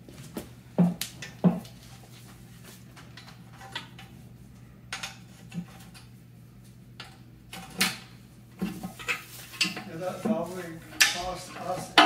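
Metallic clanks, knocks and scrapes as an aluminum oil pan is worked free from the bottom of an engine block and lowered off it. There are a few sharp knocks around the first two seconds, then scattered clanks, growing busier near the end.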